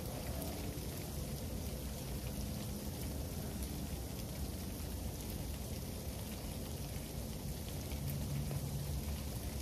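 Freezing rain falling in an ice storm: a steady hiss of drops with many small ticks as they strike the wet paving.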